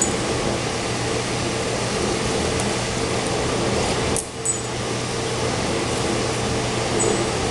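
Steady hum and rushing hiss of reef-aquarium equipment such as pumps and filtration, with a brief dip about four seconds in.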